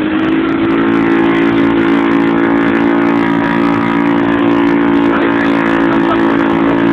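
Piaggio Liberty 50 scooter engine running loud at steady revs while riding, its note coming through a burst exhaust muffler.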